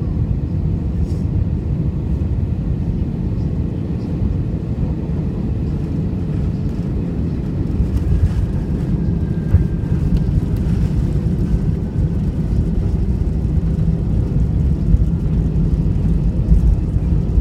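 Steady low rumble of an Airbus A320's engines and airflow heard inside the passenger cabin during landing, growing slightly louder and rougher about halfway through.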